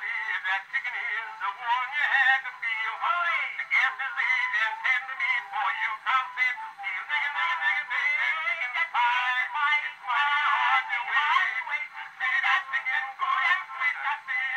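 Edison cylinder phonograph with a brass horn playing a hard black wax copy of a two-minute Edison Gold Moulded cylinder: a baritone and tenor duet with orchestra accompaniment. The sound is thin and horn-like, with no bass.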